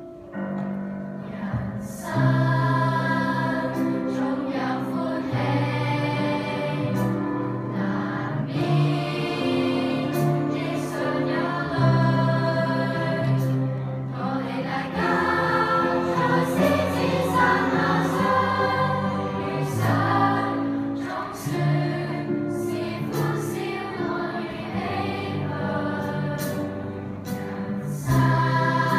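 Children's choir singing a song in parts.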